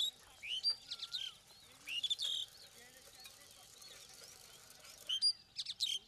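Asian pied starlings (pied mynas) calling in short bursts of sharp, rising, chattering notes, with a pause of a few seconds in the middle.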